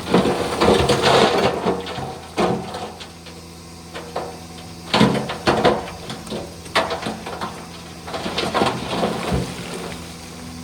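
Shantui DH17 bulldozer's diesel engine running steadily under repeated clanks, knocks and scraping, as it works through stone fill; the sharpest run of knocks comes about five seconds in.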